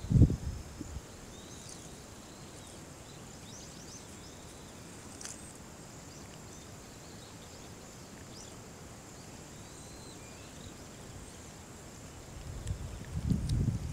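Quiet countryside ambience: a faint, steady high-pitched insect drone with scattered short bird chirps. Low rustling and knocking close to the microphone in the first half-second and again over the last second and a half.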